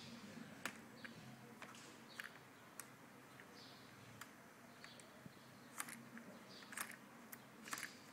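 Near silence: low room noise with a few faint, sharp clicks and ticks scattered irregularly through it.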